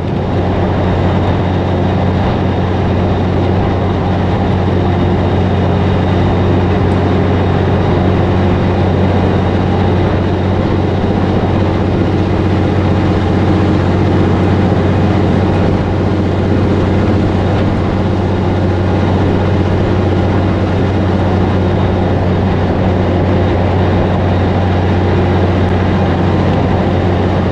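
Diesel engine of a Peterbilt 362 cabover semi truck running steadily under way at cruising speed, a constant low drone with road noise and no change in pitch.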